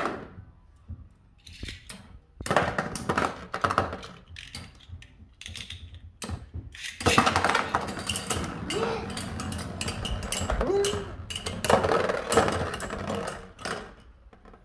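Beyblade spinning tops launched into a plastic stadium, clattering and clicking against each other and the stadium walls: a short bout about two seconds in, then a longer, busier one from about seven seconds in.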